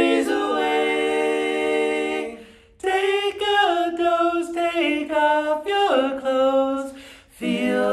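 Three male voices singing a cappella in three-part close harmony. A long chord is held for about two and a half seconds, then after a short breath the voices move together through a changing harmonized phrase, with another brief break near the end.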